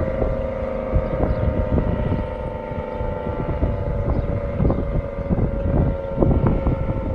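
Federal Signal SD-10 outdoor warning siren sounding the steady Alert tone, one held pitch, with heavy wind buffeting the microphone.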